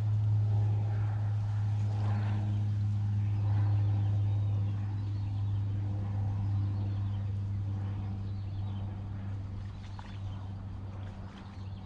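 A motor running with a steady low hum, fading slightly over the last few seconds, with faint high chirps from birds over it.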